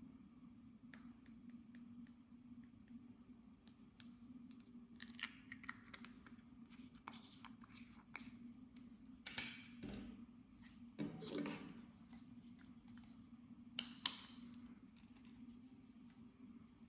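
Small handling sounds of makeup and slime being worked by hand: scattered light clicks, taps and scrapes, the loudest a sharp double click near the end, over a faint steady hum.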